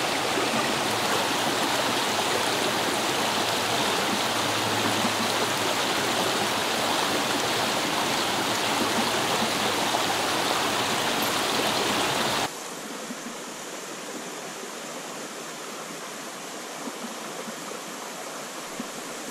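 Small rocky brook rushing steadily over a little cascade between boulders. About twelve seconds in, the sound drops abruptly to a quieter, steady rush of the same stream.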